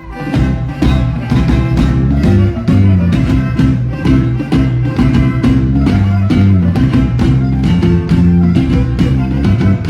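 Band playing upbeat Mexican music with a strong bass line and a steady beat, picking up again after a brief break.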